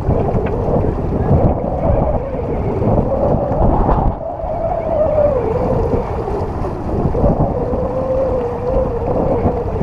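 Wind buffeting the microphone of a sailing yacht under way, over rushing water. A wavering hum runs through it from about three seconds in.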